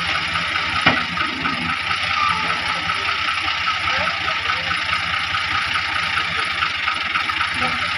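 Ghazi 65 hp tractor's diesel engine running with a steady, rapid rhythmic clatter, hitched to a loaded trolley. A single sharp knock about a second in.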